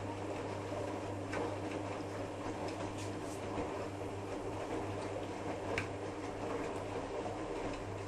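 Privileg Sensation 9415 washing machine running: a steady electrical hum under the rustling, sloshing noise of the turning drum, with a few scattered clicks. The drum noise stops near the end, leaving only the hum.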